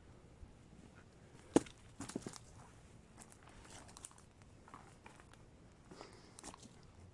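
Faint rustling and crackling with scattered clicks: one sharp click about a second and a half in, then a short cluster of knocks just after.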